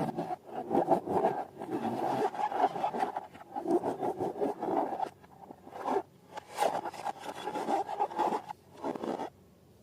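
Slime being squeezed and worked by hand: irregular sticky squishing and rubbing in quick bursts, with brief pauses, stopping shortly before the end.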